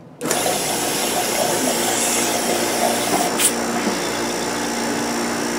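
Electric vacuum pump switched on about a quarter second in, then running steadily as it draws the air out of a glass bell jar to lower the pressure over room-temperature water until it boils.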